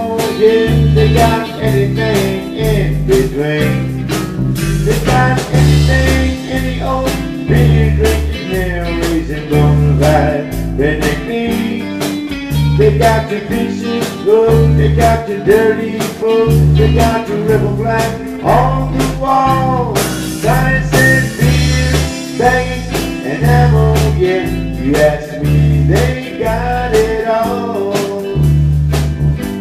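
Live band playing an instrumental passage of a country song: drum kit, bass and guitar, with bending lead lines over a steady, regular bass pattern.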